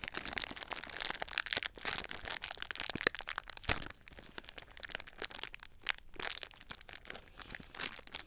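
Foil blind-bag packet crinkling and crackling as hands twist and pull at its tough sealed top to tear it open by hand. Dense crackling for about the first four seconds, then fainter, sparser crinkles.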